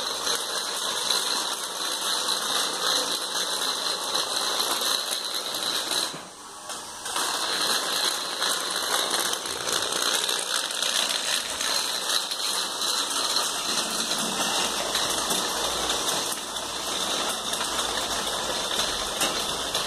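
Small electric gearmotors of a rover prototype running its 3D-printed wheels, the gearboxes whirring with a steady high whine and a ratchety, gear-grinding buzz. The sound dips briefly about six seconds in.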